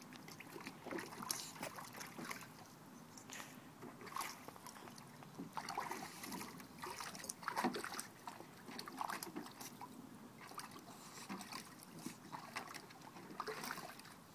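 Water sloshing and splashing in a shallow pool as an English bulldog puppy thrashes about in it, biting at the pictures printed on the pool floor; the splashes come in irregular bursts.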